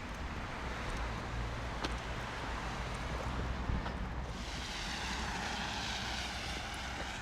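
Outdoor traffic noise in light rain: a steady low rumble, then from about four seconds in a louder, wavering hiss of a passing vehicle.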